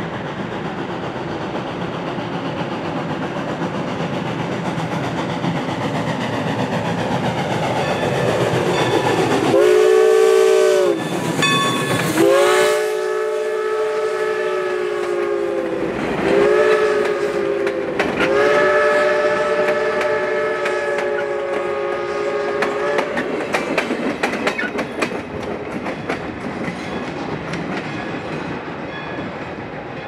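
Steam locomotive approaching, its noise building, then its steam whistle blowing four blasts of several notes at once, short, long, short, long, the pitch sagging briefly as each blast opens. After the whistle, the passenger cars rattle and click past over the rail joints, fading near the end.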